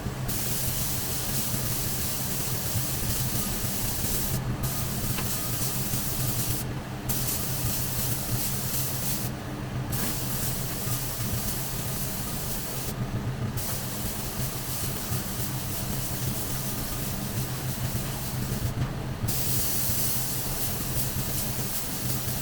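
Compressed-air paint spray gun hissing in long passes, cut off briefly about five times as the trigger is released, over a steady low hum.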